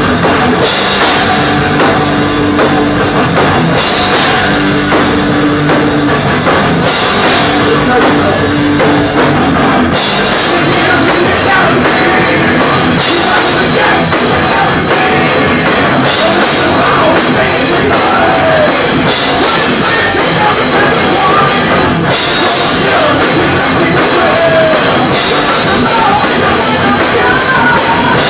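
Thrash metal band playing live at full volume, driven by a drum kit. For the first ten seconds a low held note repeats about every two seconds between drum hits. About ten seconds in, the cymbals start crashing continuously and the music stays dense to the end.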